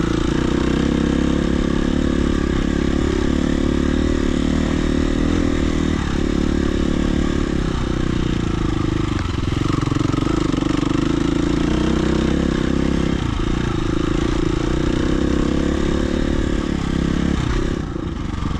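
Dirt bike engine running as the bike is ridden along a trail, the throttle varying, with a brief easing off near the end.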